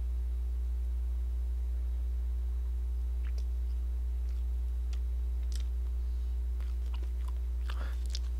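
Steady low hum, with a few faint clicks of a metal utensil and chewing as a man eats, most of them in the second half.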